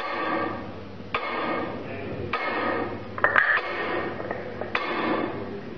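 Kinetic sound machine's chain-driven striker arm tapping a resonant object about once every 1.2 seconds, five strikes in all, each leaving a ringing tone, over a low steady machine hum. About three seconds in, a louder, brighter ringing clatter stands out.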